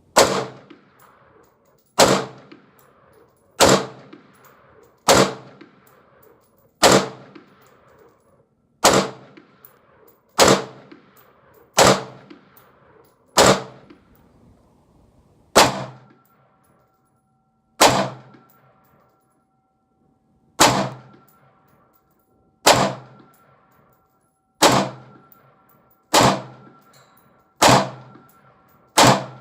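Daniel Defense Mk18 AR pistol firing single 5.56 rounds at a slow, deliberate pace: about seventeen sharp shots, one every one and a half to two seconds, each dying away quickly.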